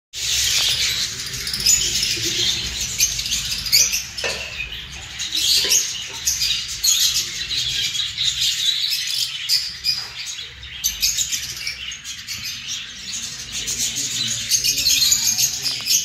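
Many caged lovebirds chattering together, a dense, continuous stream of high-pitched chirps and squeaks with no pause.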